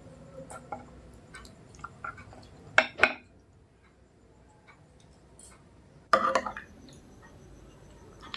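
Eating sounds at a plate of rice and mutton curry: scattered small clicks and clinks, with two louder short noisy bursts about three and six seconds in.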